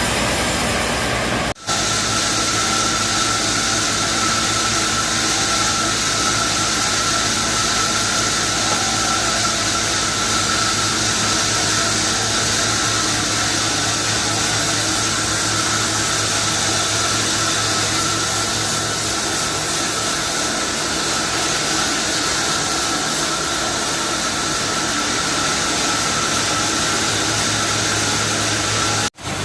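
Sawmill blade cutting steadily through a freshly felled, wet mahogany log, a continuous loud rushing noise with a steady whine held at one pitch.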